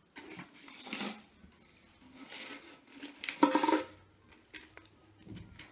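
Pink moldable play sand being pulled apart and crumbled between fingers over a plastic half-shell, with soft crumbling and rustling scrapes, loudest about a second in and again around two and a half seconds in.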